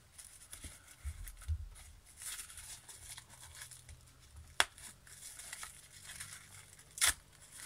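Pink wrapping paper crinkling and rustling as a small wrapped package is pulled open by hand, with two sharp clicks, one a little past halfway and one near the end.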